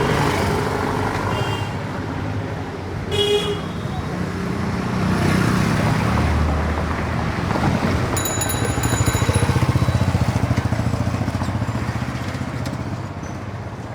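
Busy Indian street: a continuous din of traffic engines and crowd voices, with short horn toots about a second and a half and three seconds in. Around the middle a high ringing tone sounds and a small engine passes close, loudest just after it, before the din eases a little near the end.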